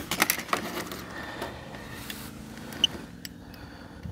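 Handling noise from a phone with solar eclipse glasses held over its lens: a quick run of clicks and knocks in the first half-second or so, then a faint steady low hum with a few small clicks.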